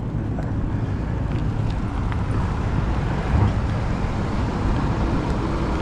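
Steady wind noise buffeting the microphone of a bike-mounted action camera while riding, mixed with low road rumble.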